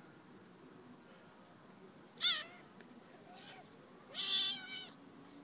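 Cat meowing: a short high call about two seconds in, a faint one a second later, then a longer, louder call near the end.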